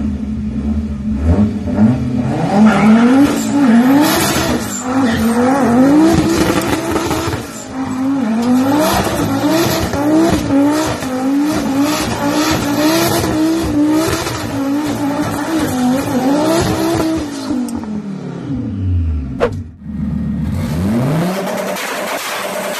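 Five-cylinder engine swapped into a Toyota Supra, revved hard again and again, its note rising and falling about once a second, with tyre squeal as the car does burnouts and donuts. The revs fall away near the end, and after a cut another engine revs and settles.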